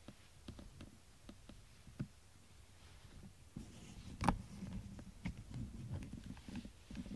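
Cat purring close to the microphone, a low rhythmic rumble that is faint at first and grows stronger about halfway through, with soft rustling of fur and bedding and a sharp click about four seconds in.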